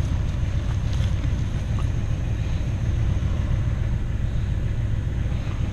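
An older car's engine running steadily, a low rumble heard from inside the cabin.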